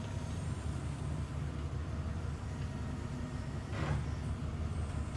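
Ford Econoline E-150 van running with a steady low rumble. A brief knock about four seconds in.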